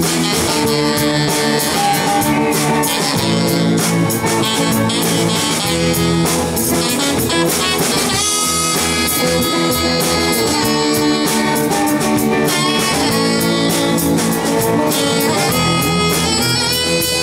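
Live rock band playing an instrumental passage, with electric guitars, bass guitar and drum kit.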